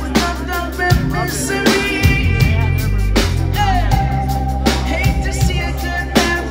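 Live band playing amplified music: drum kit, heavy bass and electric guitar under a singer's voice, heard from the crowd.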